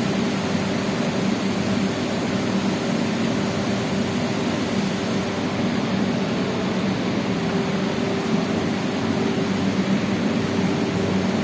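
Steady machinery hum with a low, even tone and no change in pitch.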